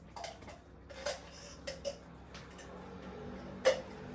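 Kitchen clatter: a handful of sharp clinks and knocks of a utensil or container against a cooking pot, spread irregularly, the last and loudest near the end.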